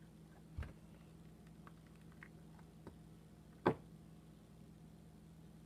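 Homemade borax slime handled by hand: a few faint squishes and small clicks, with a soft thump about half a second in and a sharper click a little before four seconds.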